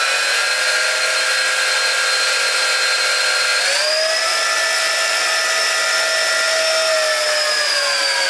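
Tarantula X6 (JJRC H16) quadcopter's small brushed motors spinning its four propellers with a steady high whine while the drone is held down. The pitch steps up a little about three and a half seconds in, then eases slightly lower. One of the motors is newly fitted and is on its first test spin, not yet run in.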